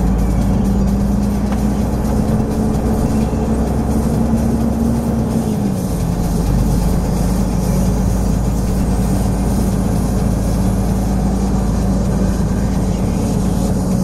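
Truck's diesel engine running steadily, heard from inside the cab as it drives slowly, a constant low drone with a rumble beneath. Its pitch steps down slightly about six seconds in.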